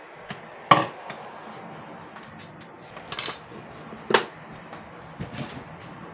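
A spoon clinking sharply against a ceramic bowl a few times, with a quick rattle of taps in the middle, as gram flour is spooned into a bowl of ground chana dal.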